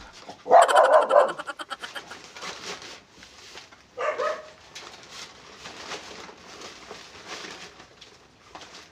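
A dog barks loudly about half a second in and gives a shorter bark about four seconds in, with paper food packaging rustling faintly in between.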